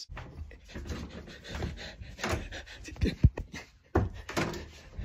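Breathy, wordless laughing mixed with rustling and knocks from a handheld phone being moved about.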